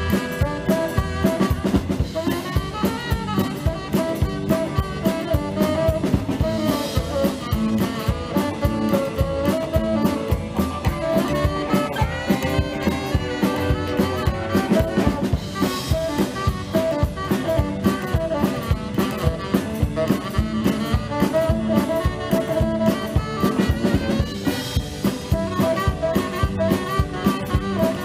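Live band playing an instrumental passage with no singing: saxophone, electric guitars and upright bass over a drum kit keeping a steady beat.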